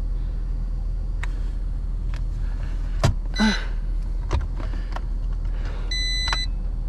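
A few sharp clicks of buttons being pressed on a battery-powered portable air compressor with an LED light, then one short electronic beep from it near the end, over a steady low hum.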